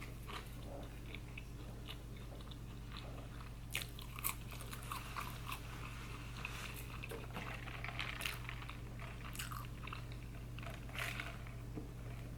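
A person chewing and biting food close to the microphone, with irregular wet mouth clicks throughout.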